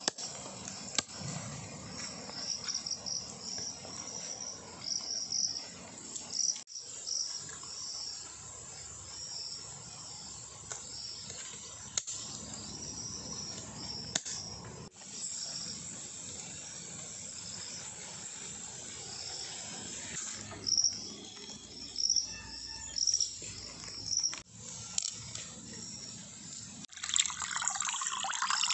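Insects chirping in short, repeated high-pitched bursts over a steady outdoor background. Near the end comes water sloshing as hands wash raw chicken pieces in a basin.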